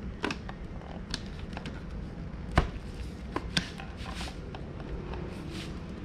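Plastic parts of a cordless vacuum being handled and fitted back together: a series of sharp clicks and knocks, the loudest about two and a half seconds in, over a low steady background hum.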